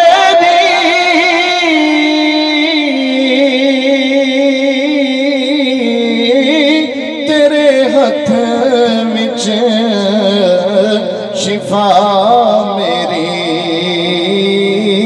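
A man singing a devotional naat into a microphone, amplified, with long held notes that waver in pitch and slide between melodic turns.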